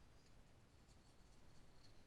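Near silence: room tone, with faint handling noise.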